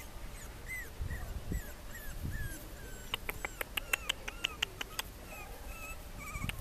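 26-day-old French bulldog puppies whimpering: a string of short, high, squeaky whines, each falling in pitch. A quick run of sharp clicks comes in about halfway through.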